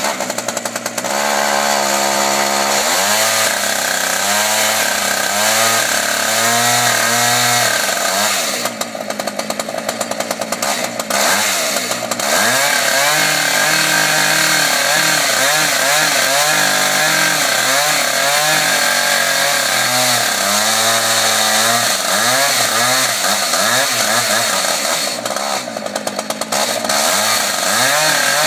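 Concrete chainsaw running under load as it cuts through a concrete pool wall, its engine pitch rising and falling with the cut. It eases off twice for a second or two before picking up again.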